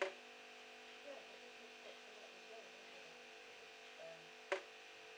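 Water dripping from a tap: two sharp drops, one at the start and one about four and a half seconds later, each with a short ringing plink, and a few much fainter drops between them, over a steady hum.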